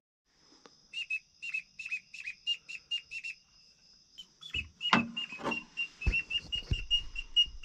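A run of short, high whistled chirps, two or three a second, pausing briefly in the middle and then starting again, over a steady high insect trill. A few low knocks sound around the middle.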